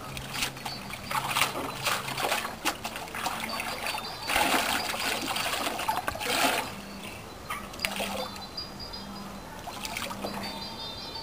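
Rinse water splashing and dribbling in a plastic tub as a skein of cochineal-dyed alpaca yarn is worked, lifted and squeezed out by gloved hands. The splashing is loudest around the middle, then settles to a quieter dripping.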